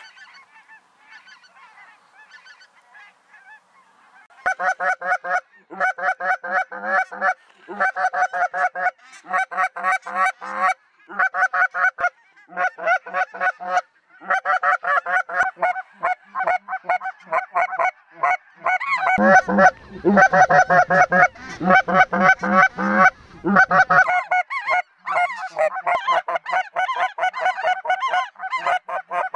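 Snow geese calling: faint at first, then from about four seconds in a loud, dense chorus of rapid high honks in repeated bursts, with a low rumble underneath for a few seconds after the middle.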